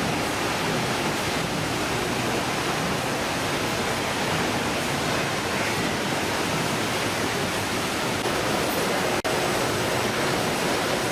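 Steady, even rushing noise, unchanging throughout, with a momentary dropout about nine seconds in.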